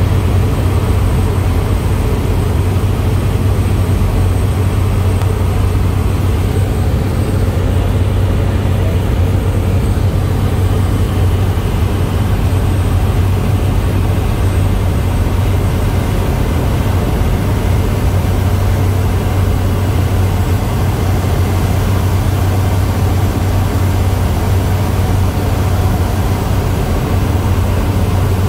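Seaplane engine running with a steady, loud low drone.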